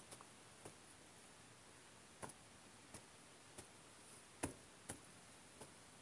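Faint, scattered clicks and snaps, about eight in six seconds and unevenly spaced, the loudest about four and a half seconds in: a person moving about on dry leaf litter and twigs while working at a frame of wooden poles.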